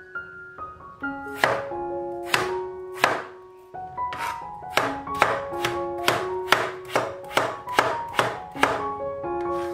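Cleaver chopping raw potato slices into chunks on a plastic cutting board: three spaced chops, then a steady run of about two to three chops a second from about four seconds in. Background music of sustained keyboard-like notes plays underneath.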